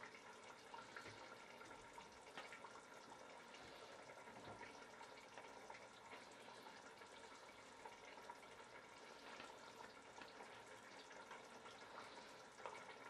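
Near silence: faint room tone with a few soft scattered ticks.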